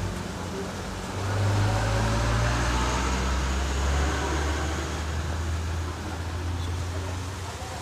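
Low engine rumble of a passing motor vehicle, swelling about a second in and fading away after about six seconds.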